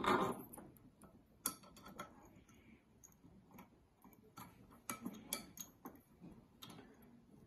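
Wood screws being put in by hand, loosely, at the corner brackets of a wooden chair frame: faint, irregular clicks and small scrapes of metal on wood.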